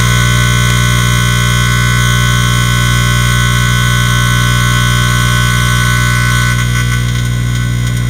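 Microwave oven running with a light bulb burning inside it: a loud, steady electrical hum with a high buzzing whine on top. The high buzz softens about six and a half seconds in.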